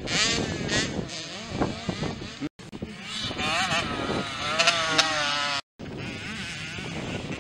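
Youth 65cc two-stroke motocross bikes racing, their engines revving up and down with a quickly wavering, rising and falling pitch as the riders work the throttle. The sound drops out abruptly twice, about two and a half and five and a half seconds in.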